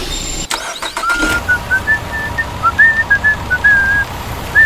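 A whistled tune of short notes hopping up and down in pitch, starting about a second in, over a low steady engine rumble.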